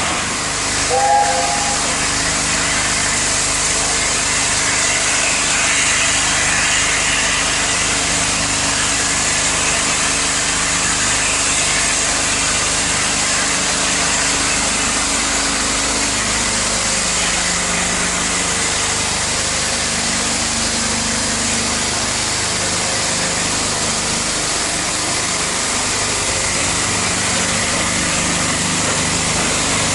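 Steady running noise and hiss of a steam-hauled heritage train, with a brief higher tone about a second in.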